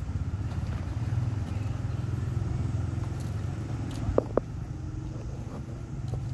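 A motor vehicle engine running steadily at low revs, with two short high tones about four seconds in.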